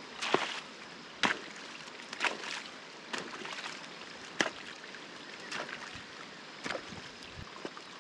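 A digging tool cutting a drainage ditch in waterlogged ground: sharp, wet strokes into the sodden soil, roughly one a second.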